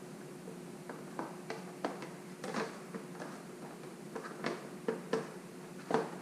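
Scattered light clicks and knocks of hand-fitted motorcycle parts and hardware being handled and set into place, irregular and a few each second, over a faint steady hum.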